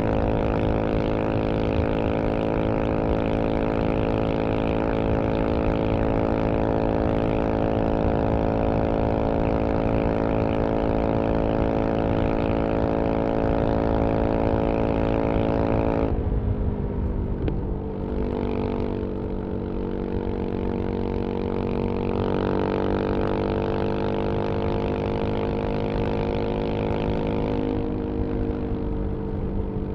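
1994 Yamaha XT 600's single-cylinder four-stroke engine, breathing through a GPR Trevale exhaust, held steady at high revs at speed. About halfway through the throttle is suddenly eased and the note drops. The engine then pulls again, its pitch rising slowly, before easing off once more near the end.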